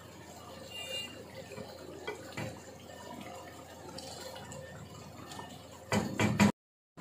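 Wooden spoon stirring and lifting thick curry gravy in a steel pot: faint wet liquid sounds and light scrapes. A short burst of louder knocks comes about six seconds in, and then the sound cuts off abruptly.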